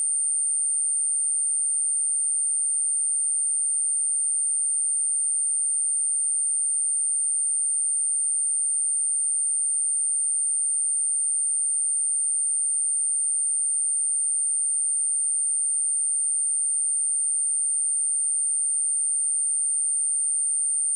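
Pure 8926 Hz sine-wave test tone, a single steady high-pitched tone held without change.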